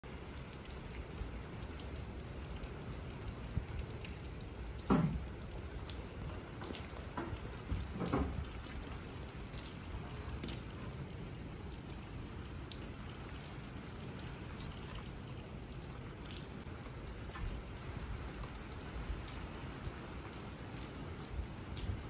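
Light rain: a steady soft hiss with scattered drips ticking on surfaces. Twice, about five and eight seconds in, a short sound sweeps down in pitch, the first being the loudest moment.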